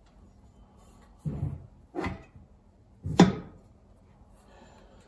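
A metal part being fitted onto a transaxle: three short clunks about 1.3, 2 and 3.2 seconds in, the third the loudest.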